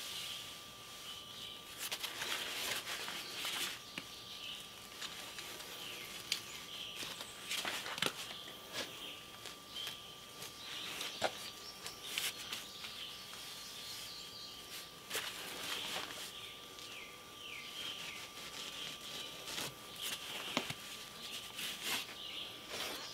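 Quiet outdoor ambience: high chirping from wildlife in the trees over a faint steady tone, with scattered light clicks and taps from handwork on the concrete block wall.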